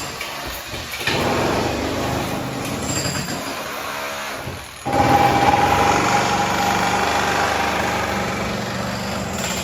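Motor-driven machinery running, with a steady high whine over dense mechanical noise. It dips and then starts again abruptly and louder just before five seconds in.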